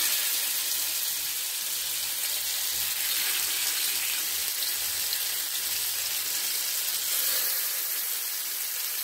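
Marinated fish pieces sizzling steadily in shallow oil in a flat non-stick pan as more pieces are laid in.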